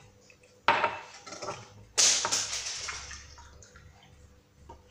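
Water poured from a glass splashing into a stainless steel saucepan of sugar to make sugar syrup. Two sudden splashes, about a second and two seconds in, each trailing off over about a second; the second is louder.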